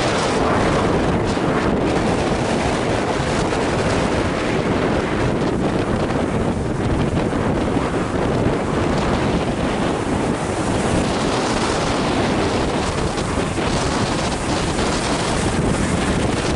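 Steady rushing wind noise buffeting the microphone, mixed with the distant roar of a small jet aircraft flying aerobatics overhead.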